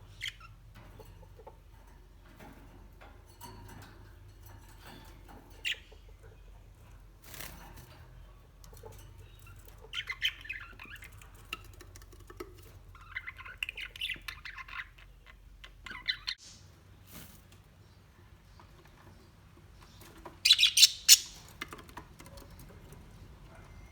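Birds calling in scattered short bursts, with the loudest cluster of calls about twenty seconds in.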